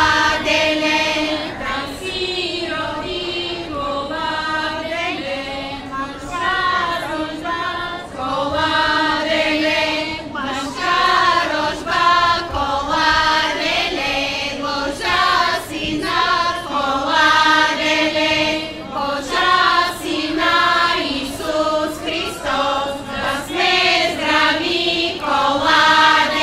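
Bulgarian women's folk choir singing a traditional song in close harmony, unaccompanied, in phrases that rise and fall.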